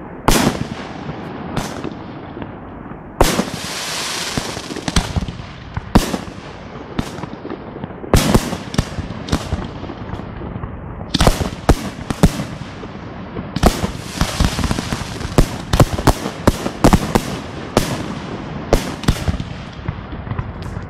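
Professional fireworks display: aerial shells bursting in a long series of sharp bangs, some in quick clusters, each trailing off in an echo. A longer hissing stretch follows a bang about three seconds in.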